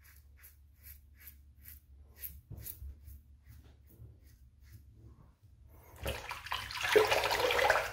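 Rockwell 6S safety razor with an Astra Platinum blade scraping neck stubble in quick short upward strokes, about two and a half a second. About six seconds in, a tap runs loudly as water rinses the razor.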